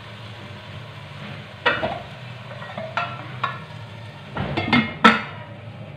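Aluminium cooking pot and lid clinking as the lid is handled and set in place: a few sharp metal knocks with a short ring, the loudest about five seconds in. Beneath them runs the steady, faint sizzle of the simmering gravy.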